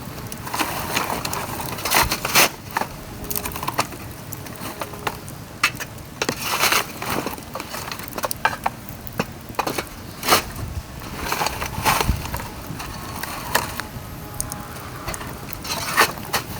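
Dry bamboo burning in a fire, crackling with irregular sharp cracks and pops, a few of them loud.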